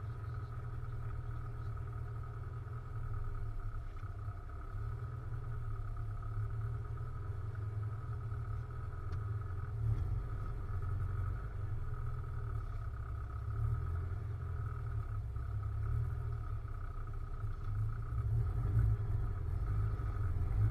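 MGB's four-cylinder engine running at held, steady revs for a motorsport exhaust noise test: a steady low rumble with a faint constant high whine over it.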